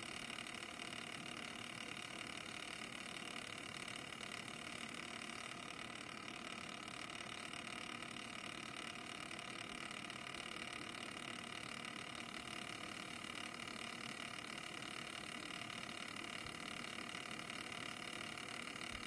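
Cooler Master MasterLiquid Lite 120 all-in-one water cooler's pump and fans running in a PC: a steady whir with several whining tones held constant throughout.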